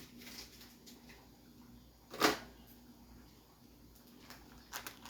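A single sharp knock, about two seconds in, with a short ring after it, and a couple of faint clicks near the end over a low steady hum.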